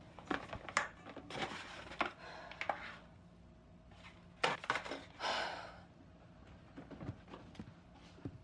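Kitchen handling sounds: scattered knocks and clinks against a metal mixing bowl, with two short spells of rustling from a paper flour bag.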